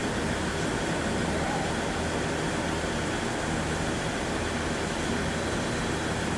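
Steady hum and rumble of a JR 211 series 3000 electric train, heard from the front of the train, with an even, air-conditioner-like drone and no distinct clicks or knocks.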